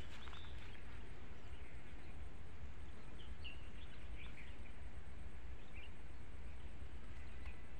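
Outdoor ambience: a steady low rumble from wind on the microphone, with a few faint bird chirps near the middle.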